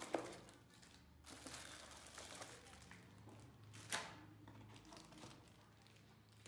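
Plastic bag crinkling as a bagged power adapter is lifted out of a molded pulp packing tray, with a knock just after the start and a sharper tap about four seconds in.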